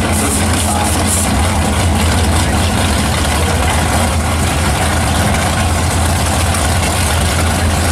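Drag-race engines of a black Oldsmobile G-body and a red 1960s Pontiac idling loudly and steadily side by side at the starting line, with a deep low hum and no revving.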